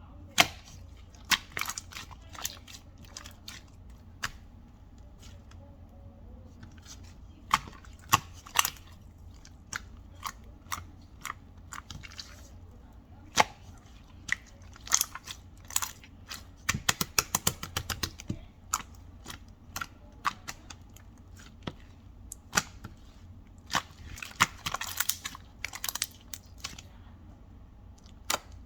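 A run of irregular sharp clicks and taps over a low steady hum, coming thick and fast around the middle and again near the end.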